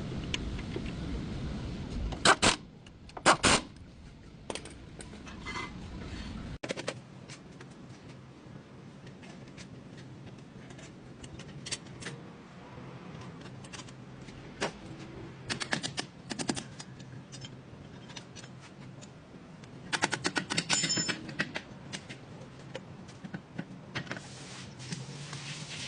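Irregular sharp clicks and light metallic clatter, with two louder knocks a few seconds in and a quick run of rattling clicks about twenty seconds in.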